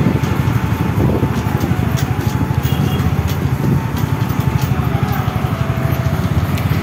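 Scooter riding on a rough dirt road close behind a truck: the scooter's engine and the truck's engine make a dense, steady rumble. A faint whine sits above it and slowly falls in pitch.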